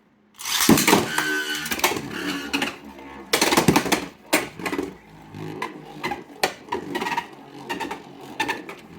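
A string launcher is ripped to launch a Samurai Saber Beyblade X top about half a second in. The top then spins in the plastic stadium with a steady pitched whir, a higher pitch meaning a faster spin. Sharp clattering hits against the stadium are heard throughout, with a loud cluster of them about 3.5 s in.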